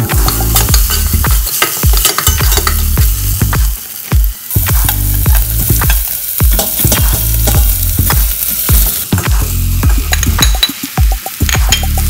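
Spatula scraping and stirring onion and garlic sautéing in oil in a stainless steel pot, with sizzling and many quick clatters against the pot; partway through, chopped patola (sponge gourd) goes into the pot and is stirred too.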